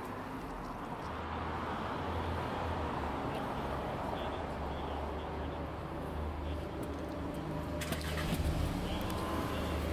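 Vehicle engine running steadily with a low hum, with a few sharp clicks near the end.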